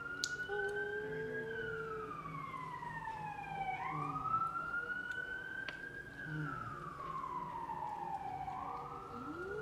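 Emergency vehicle siren wailing: a slow rise in pitch, a hold, then a long fall, repeating about every five seconds.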